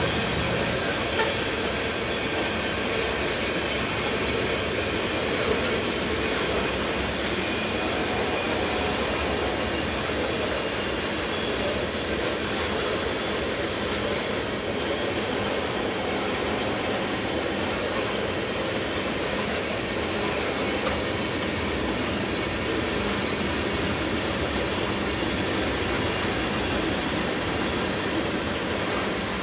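Tank cars of a freight train rolling past: a steady rumble of steel wheels on rail, with a thin high wheel squeal and an occasional click.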